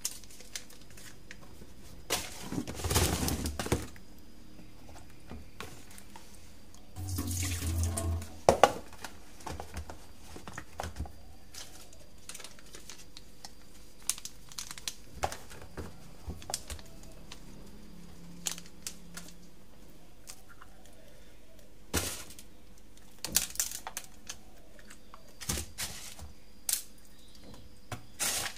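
Wet, salted mackerel being handled and laid in a container bedded with coarse salt: scattered light knocks and clicks, with two short, wet, rustling bursts about two and seven seconds in.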